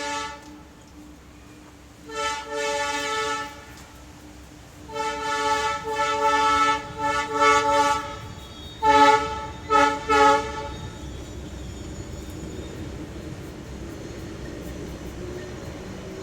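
A horn sounding a series of blasts: one long blast, a longer, wavering one, then three short ones, followed by a steady rumble.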